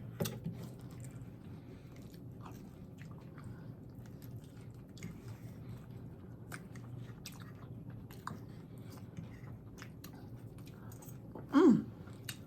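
Close-up chewing and biting of crisp fried tostadas, with scattered sharp crunches and crackles. A brief voice sound comes near the end.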